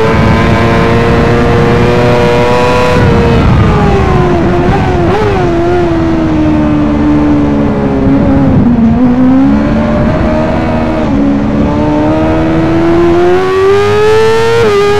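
Yamaha R6 inline-four sport-bike engine on track: high revs at first, then revs falling through downshifts with small throttle blips from about three to five seconds in, lowest through a slow corner around nine seconds in. The revs then climb steadily under hard acceleration, with a quick change near the end.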